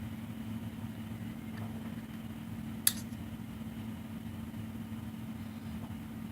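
Steady low hum, with a single sharp metallic click about three seconds in, as parts of a Para Elite Carry 1911 pistol are worked apart during a field strip.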